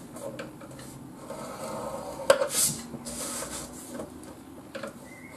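Scoring stylus scraping along the grooves of a plastic scoring board as a sheet of paper is scored and slid about on it, with small clicks and one sharp tap a little over two seconds in.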